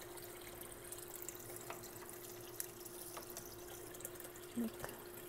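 Water trickling and dripping in a home fish tank, with scattered small drips over a steady hum.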